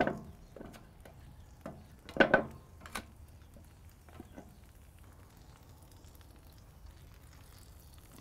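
Metal grill tongs clacking against wooden cedar planks and the grill grate as the planks are turned over: a few short knocks, the loudest about two seconds in.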